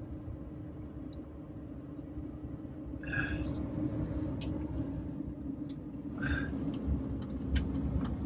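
Van driving on the road, heard from inside the cab: a steady low road-and-engine rumble with a constant hum. Brief hissy swells come about three and six seconds in.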